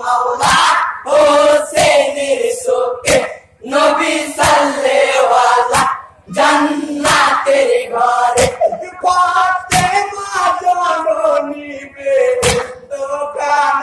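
Group of men singing a Bengali jari (marsiya), a Muharram lament for Hussain, in repeated phrases. A sharp percussive beat falls about every second and a quarter under the singing.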